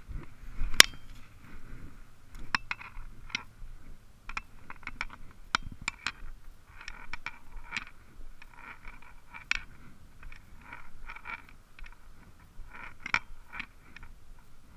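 Close-up handling noise: irregular clicks and short scraping rubs in quick clusters, with a single sharp click about a second in.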